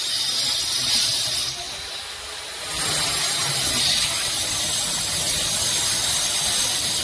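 Handheld spray gun hissing as it sprays a wall. It stops for about a second after a second and a half, then starts again.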